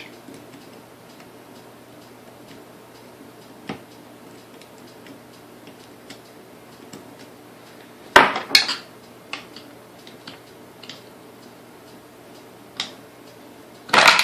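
Small metal parts from a Sunbeam Mixmaster mixer being handled and set down on a workbench: scattered faint clicks, two sharp clanks about eight seconds in, and another louder pair near the end.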